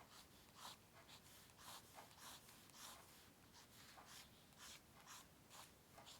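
A drawing tool scratching across paper in short, faint strokes, about two a second.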